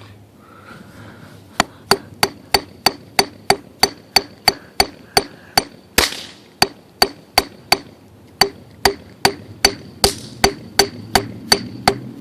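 A hammer smashing a morning glory firework with rapid, even blows, about three a second, each with a short ringing click. Two louder, noisier bursts break in about six and ten seconds in.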